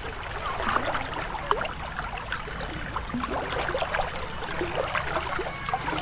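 Shallow river water babbling and lapping right at the microphone, a dense run of small gurgles and splashes over a steady low rumble of flowing water.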